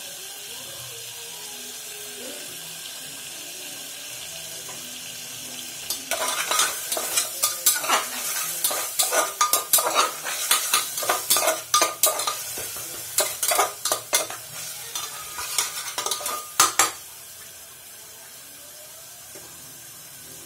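Spice mixture sizzling in hot oil in a metal pot. From about six seconds in, a metal spoon stirs and scrapes against the pot for about eleven seconds with rapid clinks and scrapes, then the steady sizzle carries on alone.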